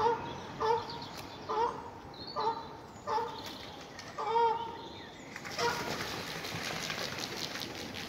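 A goose honking repeatedly, about once a second, with a longer honk about four seconds in. About five seconds in the honking stops and the flutter of pigeons' flapping wings takes over.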